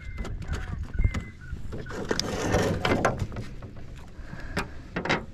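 Handling noise: scattered knocks and clicks, with a brief rushing swell about two to three seconds in.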